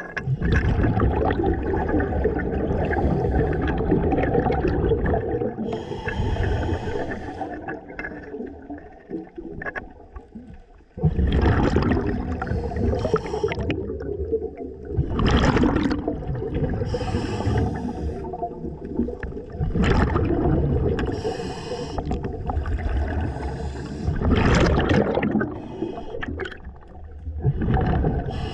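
Scuba diver breathing through a regulator underwater: each breath brings a hiss followed by a gurgling rush of exhaust bubbles, every few seconds, over a low rumble of moving water.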